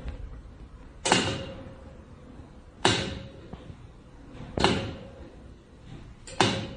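Repeated sharp bangs, about one every one and three-quarter seconds, each fading out quickly, over a faint steady hum.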